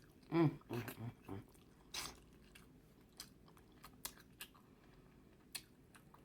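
Close-miked eating sounds: wet chewing, lip smacks and scattered sharp clicks, the loudest about two seconds in. A short hummed "mm" comes in the first second.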